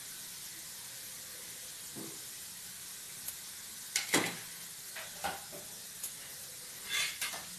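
A disc of sev, gram-flour noodles, frying in hot oil in a pan: a steady sizzle, with sharp crackles and pops scattered through the second half, the loudest about four and seven seconds in.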